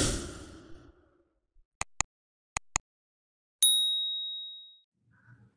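A sequence of intro sound effects. A whoosh fades out, then come four sharp clicks in two quick pairs, then a single bright high ding that rings out for about a second.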